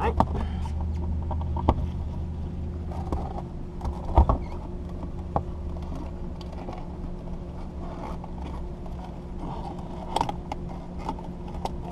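Scattered clicks, taps and light scrapes of hand work on a car, with a sharper knock about four seconds in, over a steady low hum.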